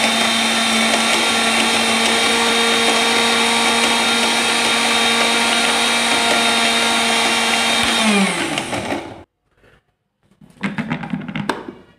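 Electric mixer grinder with a small stainless steel jar running steadily at full speed, grinding dried coconut, dates and cashews into a coarse powder. About eight seconds in it is switched off and the motor winds down with a falling whine.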